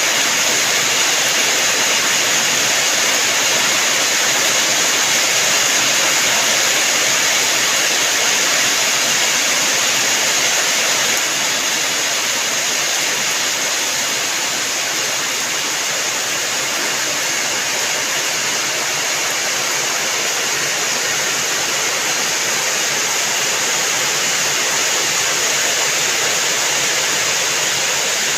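Rain falling steadily, a dense even hiss of water that drops slightly in level about eleven seconds in.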